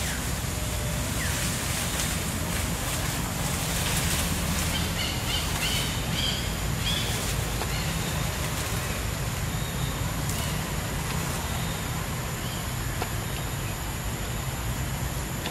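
Outdoor ambience: a steady low rumble under a steady high hum, with a few short high chirps about a third of the way through.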